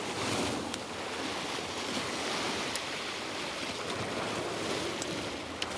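Steady sea surf washing on a rocky shore, with wind on the microphone and a few faint ticks.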